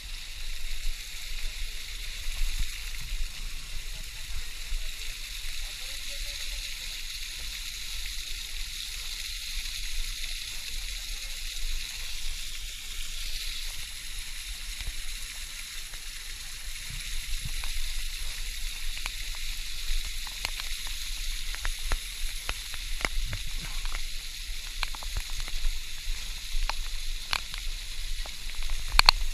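Steady hiss of falling water from a waterfall, with scattered sharp clicks and taps in the second half.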